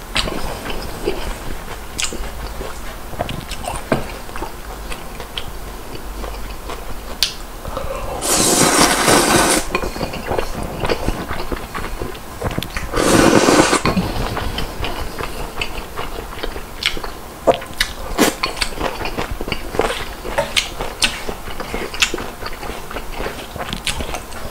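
Thick instant ramen noodles slurped in two long, loud pulls, the first about a third of the way in and the second just past halfway. Between them come chewing and the short clicks of wooden chopsticks against a bowl and a metal griddle pan.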